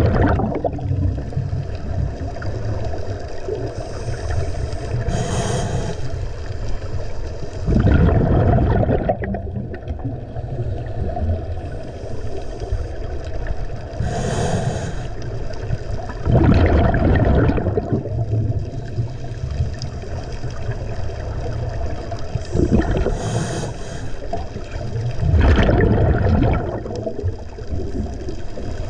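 Scuba regulator breathing underwater: a short inhale hiss, then about two seconds later a burst of exhaled bubbles lasting about two seconds. The cycle repeats three times, roughly every nine seconds, over a steady low rumble.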